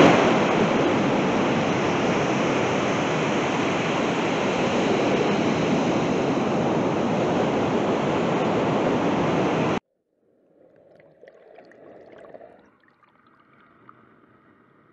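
Ocean surf rushing steadily on a sandy beach. About ten seconds in it cuts off suddenly, giving way to a much fainter, muffled wash of shallow water swirling at the waterline.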